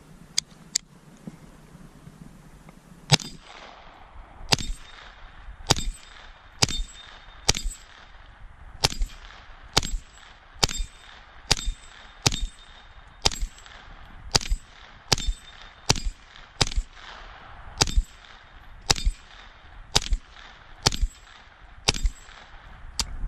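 Lone Wolf G9 9mm pistol-calibre carbine firing about twenty single shots at a steady pace of a little over one a second, starting about three seconds in, until the magazine runs dry. Each shot is followed by a brief metallic ring from the steel plates being hit. Two sharp clicks come in the first second.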